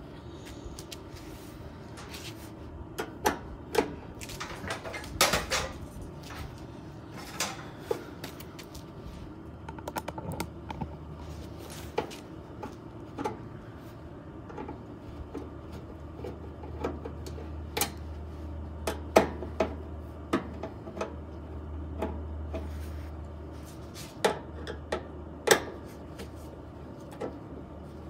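Irregular sharp metallic clicks and clinks, a few every couple of seconds, from a screwdriver and screws working on the sheet-metal control console of a 1974 Whirlpool belt-drive washer as it is taken apart.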